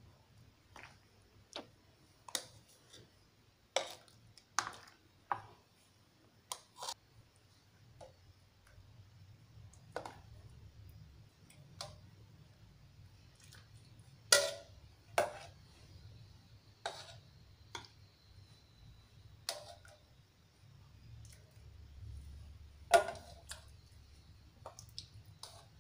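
Metal ladle clinking and knocking against a metal pot and a pudding mould as hot pudding mixture is ladled in, a little at a time: irregular taps throughout, with two louder knocks about fourteen and twenty-three seconds in.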